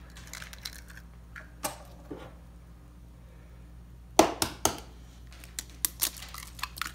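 Eggs being cracked and their shells broken open over a plastic bucket of trout chow: a few sharp cracks and taps, the loudest about four seconds in, followed by smaller clicks of shell.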